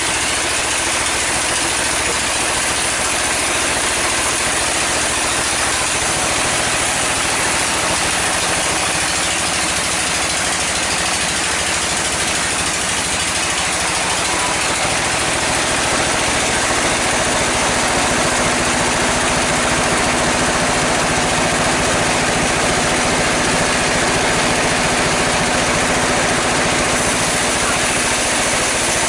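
A sawmill saw runs and cuts through a mahogany log as the log is pushed through by hand. The machine noise is loud and steady with no break, and grows a little louder about halfway through.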